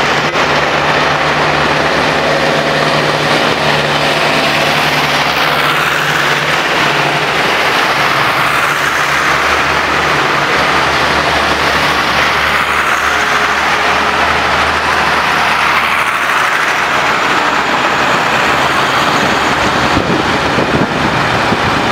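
A line of farm tractors driving past one after another, their diesel engines running steadily with an even hiss of tyres on a wet road. The engine hum drops in pitch about a third of the way in as a different tractor comes by.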